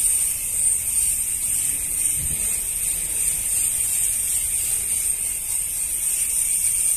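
A high-pressure washer lance sprays a jet of water against the rusty metal tank of a tanker truck, making a steady high hiss.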